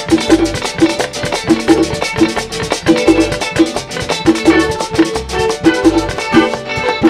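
Live Latin dance band playing an instrumental passage: two electric-acoustic guitars picking over a bass guitar, with a güira scraping and drums keeping a steady, even beat.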